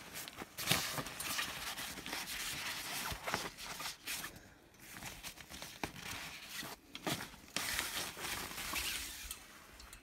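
Pop-up gazebo canopy fabric rustling and crinkling as the frame and legs are handled, with a few light knocks from the frame.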